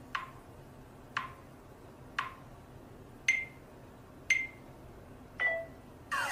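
Phone camera self-timer counting down: six short beeps about a second apart, the pitch stepping up after the third, with a lower, longer beep to finish.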